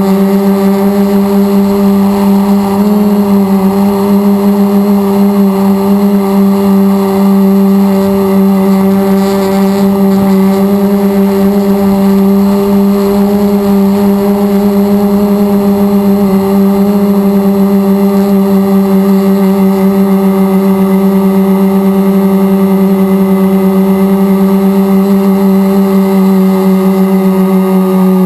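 Electric motors and propellers of a radio-controlled multirotor drone humming steadily at an even pitch in flight, picked up close by an onboard camera.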